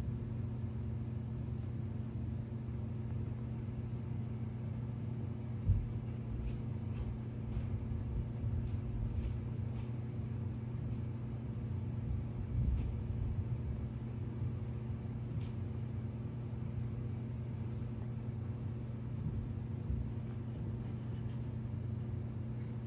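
Steady low hum with a rumble under it, faint scattered ticks, and a single thump about six seconds in.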